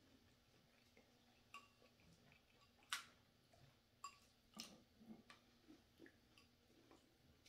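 Quiet eating sounds: a handful of faint clicks and taps from spoon and bowl and chewing, about five over several seconds, the sharpest about three seconds in.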